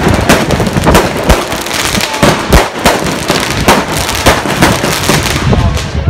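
Fireworks going off in a continuous barrage: loud bangs about twice a second, with crackling between them.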